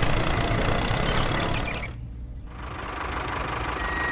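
A vehicle engine running steadily, mostly low-pitched, with a brief drop-out about two seconds in. A single steady reversing beep starts near the end.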